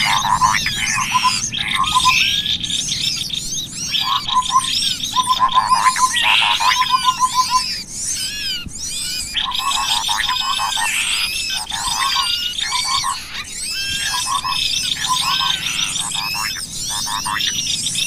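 A bird-lure recording of cucak kopi and assorted small songbirds calling together. It is a dense chorus of rapid trills, buzzy rattles and many short sweeping chirps, almost without a break.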